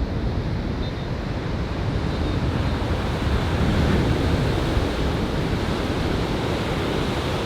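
Ocean surf washing onto a beach: a steady rush of breaking waves that swells a little about halfway through, with wind rumbling on the microphone.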